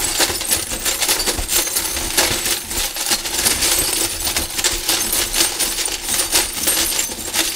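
Broken glass shards stirred and scraped with a wooden stick in a metal bowl: a dense, unbroken run of small clinks and scrapes.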